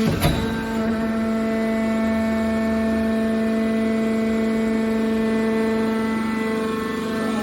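A machine running with a steady, even-pitched hum, and one sharp knock just after the start.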